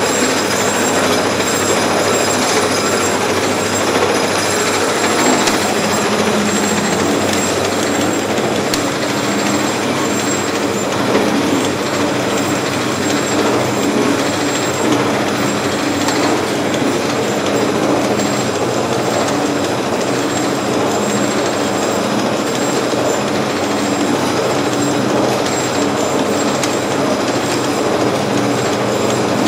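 GMC Tenderit meat tenderising machine running, with a steady mechanical rumble and clatter from its conveyor belt and rollers as cuts of meat pass through.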